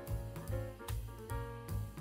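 Instrumental jazz-style background music with a steady beat and a low bass line moving in short, even steps.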